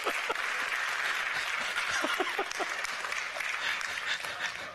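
A congregation clapping, with bursts of laughter near the start and again about two seconds in. The clapping dies down near the end.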